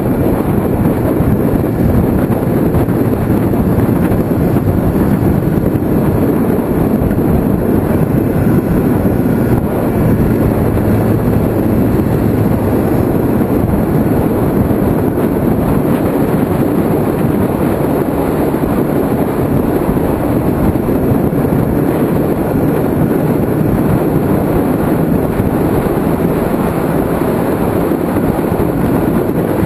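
Motorcycle riding at road speed: steady wind rush over the mirror-mounted camera, with the Kawasaki ZX-6R's inline-four engine running underneath, its note shifting a little through the curves.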